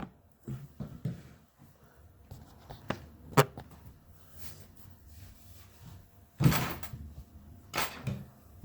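Old Master Lock padlock being handled and picked: scattered small metal clicks and taps, one sharp click about three and a half seconds in, and two louder rattling scrapes later on.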